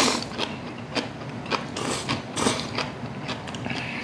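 Cold noodles (naengmyeon) being eaten: a string of short slurps and chewing noises about every half second, with light clicks of chopsticks against stainless steel bowls.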